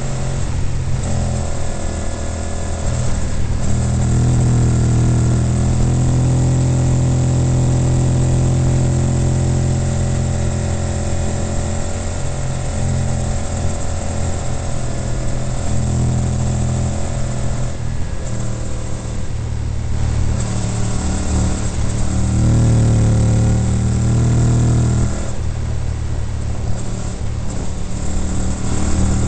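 Honda VTR1000F Firestorm's 1000cc V-twin with a Staintune exhaust, running at road speed through a run of bends. The engine note rises and falls with the throttle and dips briefly about two-thirds of the way through before picking up again.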